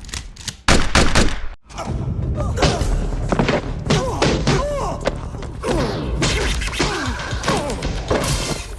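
Action-film soundtrack: a run of heavy thuds and impacts in the first second and a half, then a dense mix of music and voices.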